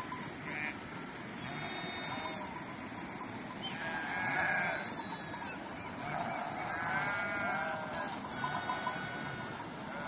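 A flock of sheep bleating, many overlapping, wavering calls one after another, loudest a little before halfway and again near the end.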